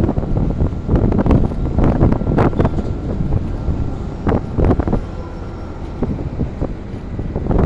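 Wind buffeting the microphone: a loud, low rumble that swells in repeated gusts.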